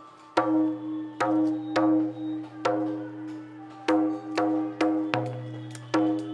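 Instrumental music: about nine pitched notes struck at an uneven pace, each ringing out and fading, over a steady low drone.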